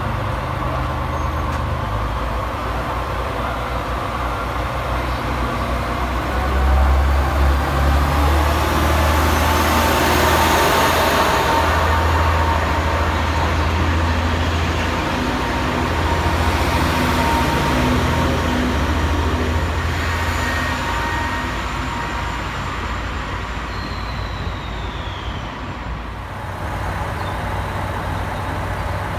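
A train moving past a station platform. A low rumble builds about six seconds in and stays strong for some fifteen seconds, with a faint whine that rises slowly in pitch, then eases off.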